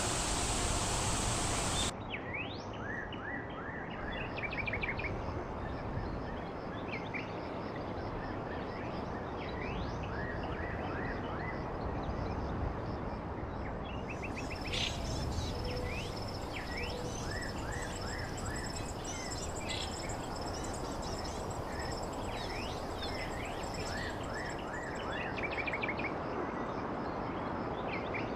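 Songbirds chirping and trilling over a steady rushing background of natural noise. A louder, brighter rush at the start cuts off suddenly about two seconds in.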